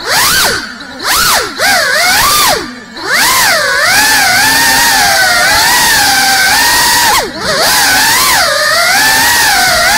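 Small FPV quadcopter's motors and propellers whining loudly, heard close up from the onboard camera. The pitch rises and falls constantly with throttle, with a few short drops when the throttle is cut: several in the first three seconds and one about seven seconds in.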